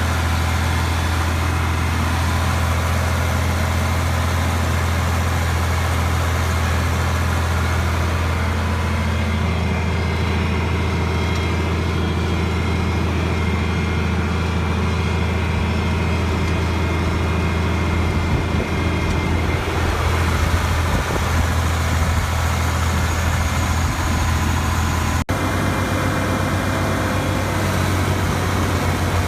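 A steady, loud low drone like a motor or engine running, with a short break about 25 seconds in.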